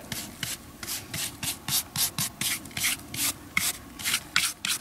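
Hand brush sweeping loose sand off a buried, rusted MP40 submachine gun: quick, regular scratchy strokes, about five a second.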